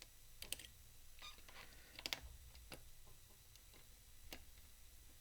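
Faint, scattered metallic clicks and ticks of lock picks working the sliders inside a slider-type padlock under tension, with two louder clicks about half a second in and about two seconds in.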